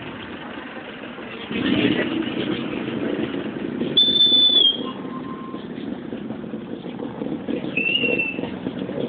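Two short, high, single-pitched whistle blasts over street noise and voices: the first and loudest about four seconds in, the second, shorter and lower, near the end.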